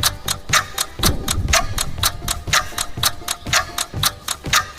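Clock-ticking sound effect marking a countdown timer, sharp even ticks at about four a second.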